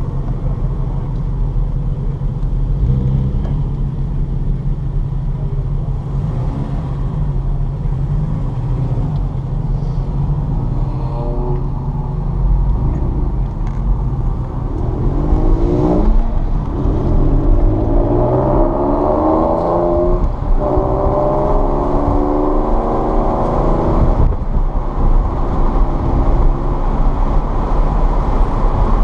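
Car engine heard from on board under hard acceleration. Its pitch climbs, then drops back at each of three upshifts in the second half, over a constant low rumble.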